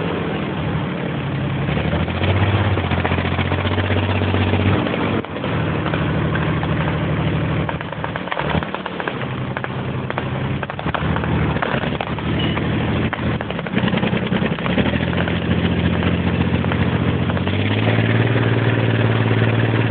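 Engine of a moving vehicle running under load, its pitch stepping down and up several times as the revs change, with a rise near the end, over a steady noise of the moving vehicle.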